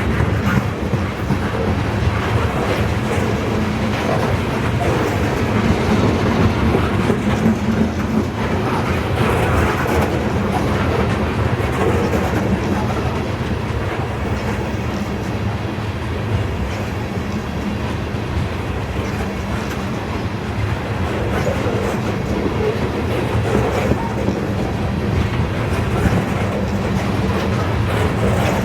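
Freight train rolling steadily past, a long string of cars with wheels running over the rails, steady throughout.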